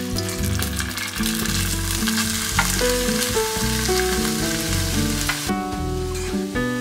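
Grated garlic and ginger sizzling in hot oil in a nonstick frying pan, stirred with a wooden spatula; minced vegetables are tipped in from a metal tray and stirred, and the sizzle drops off sharply near the end. Background music plays throughout.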